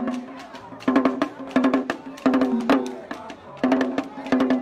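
Skin-headed drums played fast with a stick and the bare hand, sharp stick strokes in a dense rhythm, with a voice singing short repeated phrases over them.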